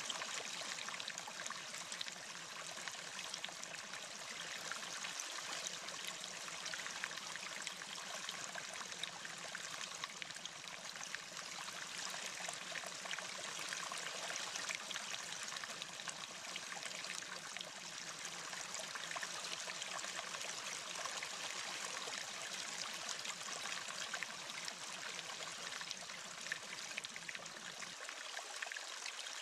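Steady rushing noise like running water, even and unbroken, with no music or voice over it.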